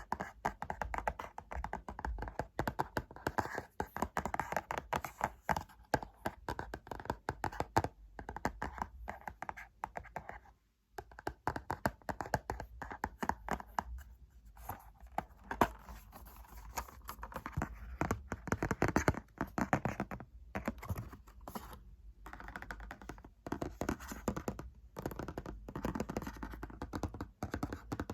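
Fingernails tapping rapidly on hard objects: a dense run of quick, light clicks, with a short break about ten seconds in and a few brief pauses later.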